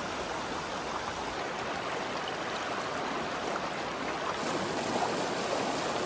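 Shallow mountain stream rushing and splashing over rocks, a steady rush of water that grows a little louder and hissier about four and a half seconds in.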